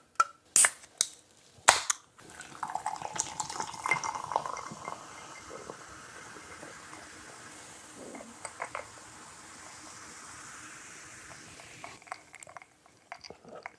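A few sharp clicks as a Coca-Cola can is handled and cracked open. Then the cola is poured into a glass and hisses and fizzes for several seconds, loudest while it pours and fainter after about six seconds.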